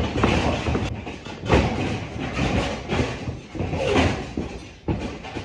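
A wrestling ring's mat and boards thudding and rattling under heavy running steps and body impacts, with several loud slams about a second apart.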